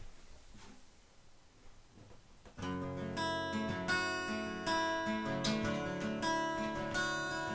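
Acoustic guitar strummed in a steady rhythm, starting about two and a half seconds in after a faint, quiet opening: the instrumental intro of a song.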